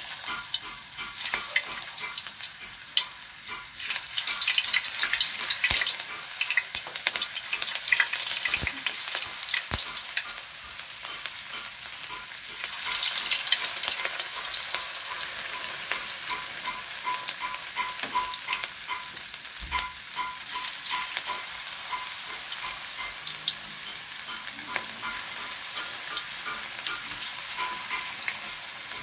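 Raw potato slices sizzling and crackling in hot oil in a large metal wok, with louder spells of crackling as more slices are dropped in.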